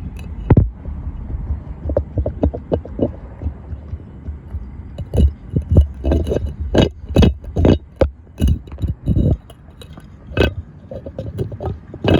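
Irregular metallic clinks, knocks and scrapes, some loud and a few in quick runs, over a low steady hum that fades near the end.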